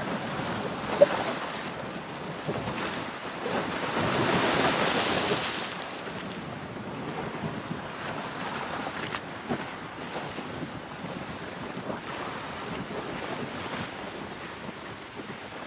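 Steady rushing noise of wind on the microphone, swelling louder for about two seconds around four seconds in.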